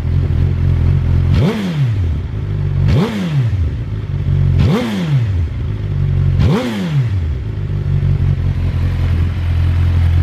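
2010 (L0) Suzuki GSX-R1000 inline-four idling through Yoshimura dual-exit mufflers. It is blipped four times, each a quick rise in revs and a fall back to idle.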